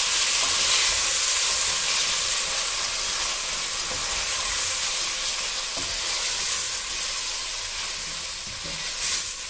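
Pigeon peas, dried shrimp and ground spices sizzling in hot oil in a pot while being stirred, the sizzle slowly easing. A short knock near the end.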